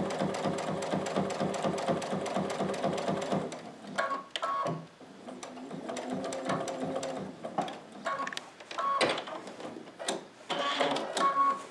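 Computerized sewing machine stitching through a quilt's binding at an even, rapid rhythm for about three and a half seconds. It then stops and starts in short runs, back-tacking a few stitches to finish the seam, with a few brief beeps in between.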